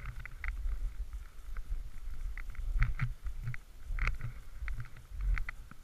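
Skis running down a groomed slope of fresh snow, heard as a steady low rumble with irregular short scraping clicks from the skis on the snow.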